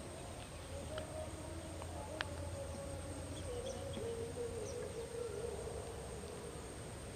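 Forest insects droning, with a steady high-pitched whine over a lower wavering hum and a few faint clicks.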